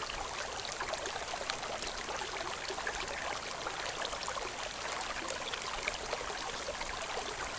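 Steady trickling of running water, an even hiss full of fine ticks that holds level throughout.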